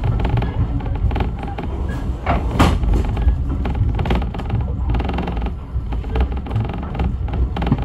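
Steam-hauled heritage railway carriage running, heard from inside the coach: a steady low rumble of wheels on the track with frequent irregular knocks and creaks from the coach.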